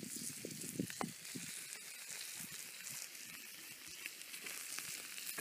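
Steaks sizzling on a hot slate over an open wood fire, a steady hiss with a few faint pops.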